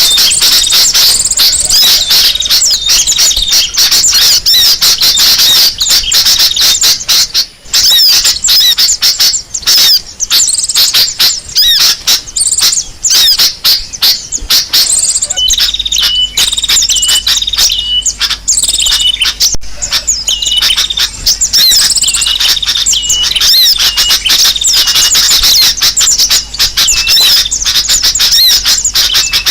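Loud, dense chatter of many small birds calling at once, a bird-lure recording of agitated birds played to draw other birds in. From about halfway a short, lower call repeats over and over, a little more than once a second, under the high chirping.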